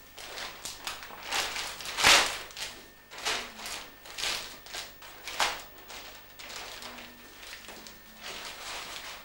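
White wrapping being handled and unfolded by hand, rustling and crinkling in a string of irregular bursts, the loudest about two seconds in.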